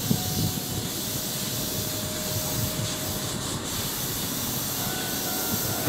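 Keihan 6000 series electric train standing at the platform, its onboard equipment running with a steady hiss over a low rumble. Faint steady tones sit under the noise, with a higher one joining about five seconds in.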